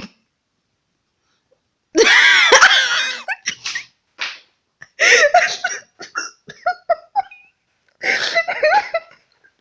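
A person giggling and laughing in three bouts of short bursts, the first starting about two seconds in.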